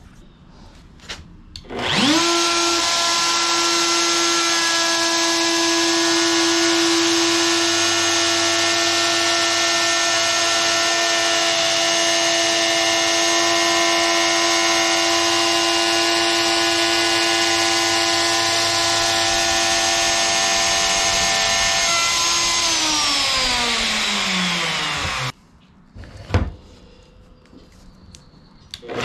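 Handheld DeWalt router clicked on and spinning up to speed in under a second, then running at a steady high pitch as it is pushed across a plywood panel for a shallow pass. About 22 seconds in its motor is switched off and winds down, falling in pitch, followed by a couple of knocks. It starts up again at the very end.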